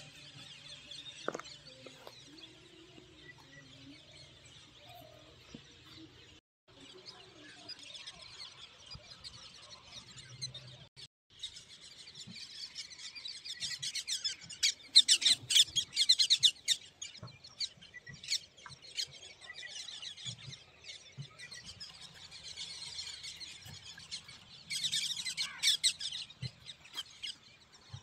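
A flock of small birds chirping and twittering, many calls overlapping. The chatter grows louder about halfway through and again near the end, and it drops out briefly twice.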